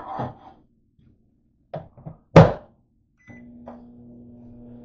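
Microwave oven door shut with a loud thunk, then a short keypad beep, and the microwave starts running with a steady low hum.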